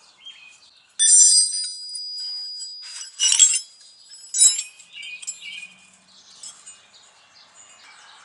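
A metal part strikes metal and rings with a bright, bell-like tone about a second in, fading over a couple of seconds, followed by a few shorter metallic clanks and scrapes, typical of tools and bolts being worked while removing a car starter.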